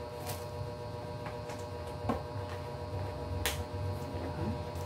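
A few light clicks and taps from a brown handbag being handled, its flap and metal clasp worked, with the sharpest click about three and a half seconds in. A steady electrical hum runs underneath.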